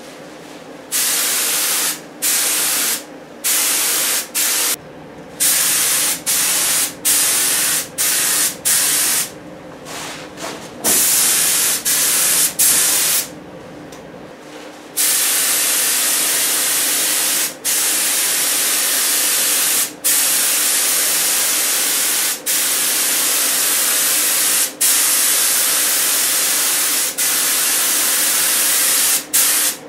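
Gravity-feed spray gun on a compressed-air line spraying clear lacquer in passes: a hiss that starts and stops with each pull and release of the trigger. It comes in short bursts with gaps at first, then from about halfway in longer bursts of about two and a half seconds with only brief breaks between them.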